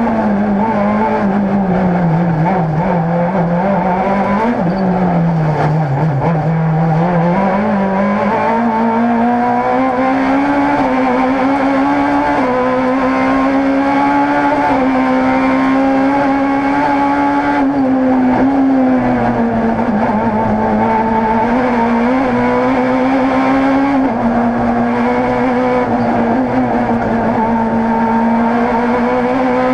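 Rally car engine heard from inside the cockpit, running hard under load, its pitch falling and rising again several times as the car slows for bends and accelerates out of them.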